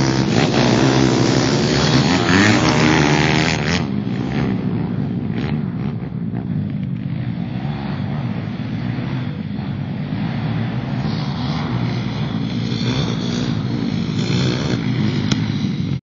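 Pit bike engines: one revving up and down close by for the first four seconds or so, then several pit bikes running at a distance, their engines rising and falling as they ride.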